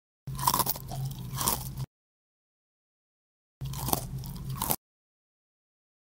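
Crunchy chewing of a mouthful of cereal, in two bouts, the first about a second and a half long and the second about a second, each cutting off sharply.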